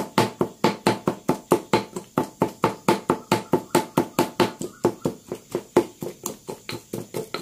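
Spices being pounded to a paste with a mortar and pestle: quick, even strikes, about four to five a second, a little softer after about five seconds.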